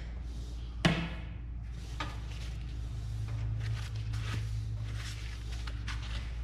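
Metal tent-stove parts being handled during unpacking: one sharp metallic clank with a short ring about a second in, then lighter knocks and rustling.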